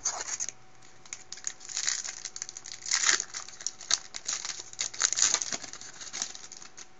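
Foil wrapper of a 2012 Bowman Platinum baseball card pack being torn open and crumpled by hand, in a string of short bursts, the loudest about three and five seconds in.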